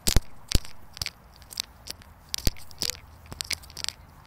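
A run of sharp, uneven clicks and crunches, about three or four a second, some louder than others.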